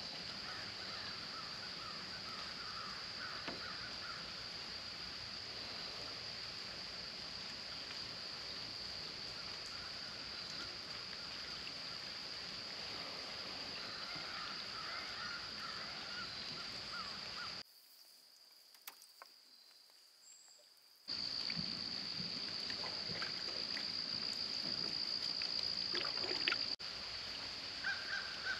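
Outdoor swamp ambience: a steady high-pitched drone with birds calling now and then. The sound drops much quieter for about three seconds a little past halfway, then returns.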